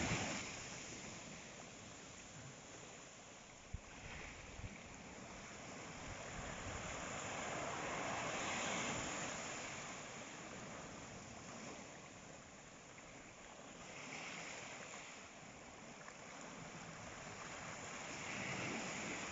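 Sea waves washing onto the shore, a steady rush that swells and falls back every few seconds, with two small knocks about four seconds in.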